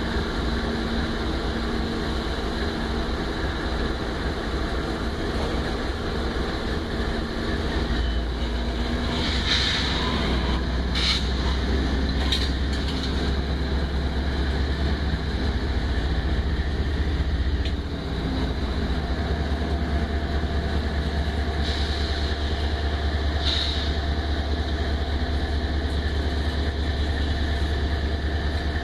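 Freight train pulling slowly past: a steady low rumble from the diesel locomotives and rolling freight cars. Short, high wheel squeals come around ten seconds in and twice more near the end.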